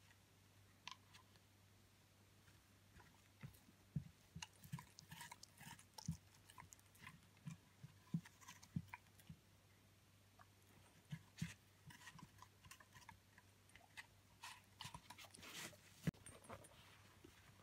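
Hamiltonstövare puppy biting and chewing at a whole apple: irregular crunches and wet mouth clicks with short quiet gaps between, a sharp crunch near the end.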